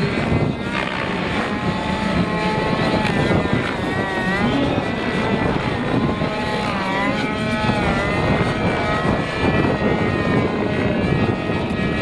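A large radio-controlled helicopter (Wiplash Gasser) flying aerobatics, its gasoline engine and main rotor running steadily. The engine's pitch swoops down and back up a couple of times as the model manoeuvres.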